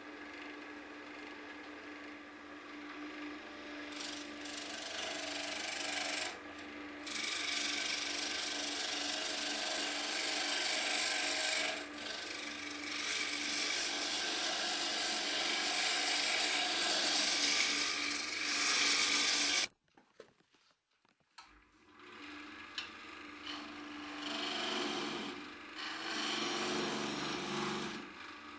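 Wood lathe running with a steady motor hum while a hand-held turning tool cuts the spinning wooden blank, giving a scraping, shaving hiss that swells and eases as the tool is worked. About twenty seconds in the sound stops for a couple of seconds, then the lathe and cutting resume.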